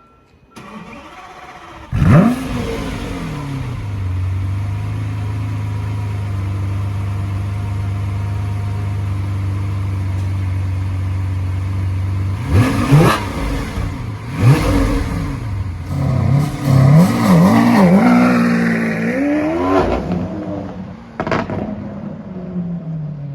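Lamborghini Aventador LP700-4's V12 engine starting with a loud flare about two seconds in, then settling into a steady high idle. From about halfway it is revved in a series of throttle blips rising and falling in pitch, with a sharp crack near the end before it drops back toward idle.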